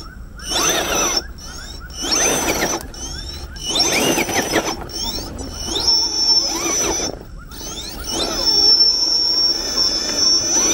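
Electric scale RC rock crawler's motor and drivetrain whining in about five bursts as the throttle is worked, the pitch rising and falling with each push, over a steady high whine.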